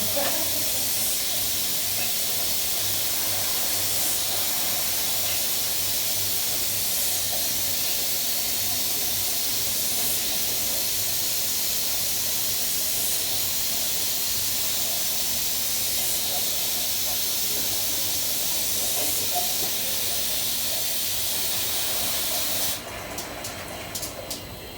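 Bottling-line machinery hissing steadily and loudly, then cutting off suddenly near the end, followed by a few light clicks.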